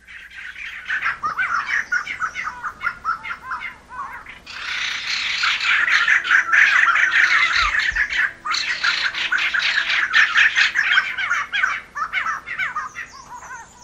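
Several birds calling at once in a dense, rapid chatter of squawks and chirps. It grows louder about a third of the way in and eases off near the end.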